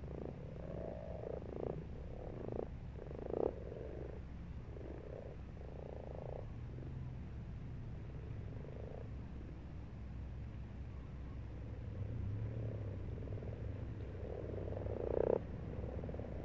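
Common frogs croaking in a garden pond: short, low purring croaks, several close together in the first few seconds, then sparser, with a louder one near the end. These are the males' breeding-season calls.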